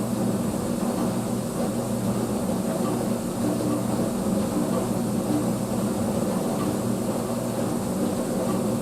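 Dishwasher running through its wash: a steady, even motor hum with a constant rushing noise beneath it.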